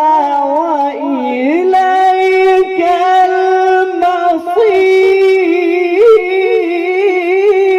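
A male Qur'an reciter (qari) chanting melodic tajwid recitation into a microphone. About two seconds in he slides up to a long held high note, which he decorates with small melodic turns.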